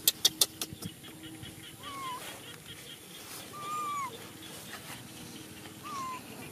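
Baby macaque cooing: three short, clear whimpering calls, each arching and dropping in pitch at the end, the middle one longest and loudest. A fast run of sharp clicks fades out in the first second.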